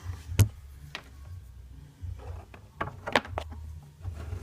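Handling noise with a few sharp plastic clicks as the cover of a motorcycle-mounted USB charging port is opened and a charging lead is readied. There is one sharp click about half a second in and a few more around three seconds.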